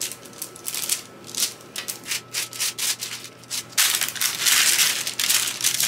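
Baking paper crinkling and rustling under gloved hands in short bursts, then a louder, continuous crinkling from about four seconds in as the paper is gathered up around the dough.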